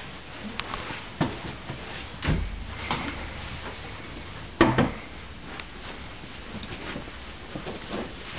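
Wooden dining chairs pushed back and shifted as people get up from a table: several short knocks and scrapes, the loudest about four and a half seconds in.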